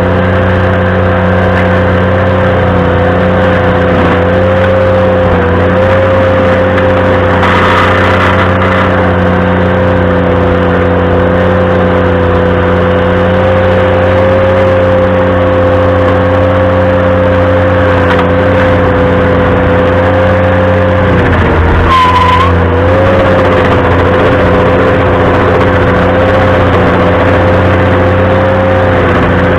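Ventrac compact tractor running steadily at high speed, driving a stump grinder. About two-thirds of the way through, the engine pitch sags briefly under load and a short high squeal sounds, then the engine recovers.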